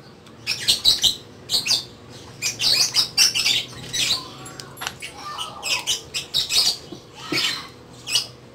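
Pet birds calling: a rapid series of short, high chirps that keeps going throughout.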